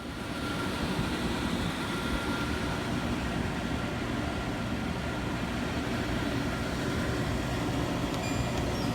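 Shinco YPL3-10C 10,000 BTU portable air conditioner switched on, its fan coming up to speed within the first second and then running with a steady rushing hum.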